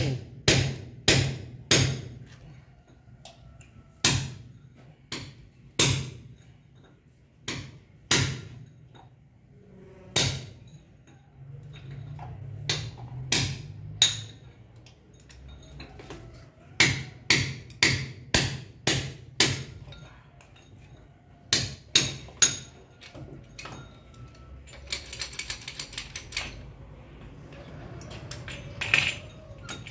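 Hammer blows on a concrete slab, in runs of about two sharp strikes a second with pauses between. A short, rapid rattle comes near the end.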